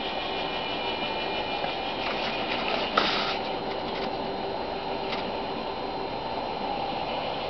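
Model train running steadily on its track, with one sharp knock about three seconds in.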